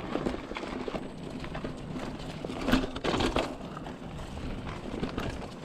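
Mountain bike rolling over a dirt trail: tyre noise with the bike's chain and frame rattling and ticking, and a louder clatter about three seconds in.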